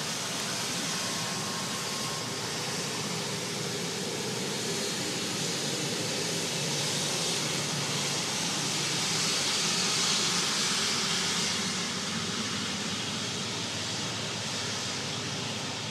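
Twin jet engines of a Swiss Airbus A330-300 at taxi power: a steady rushing hiss with a low rumble beneath, swelling about ten seconds in and then easing off.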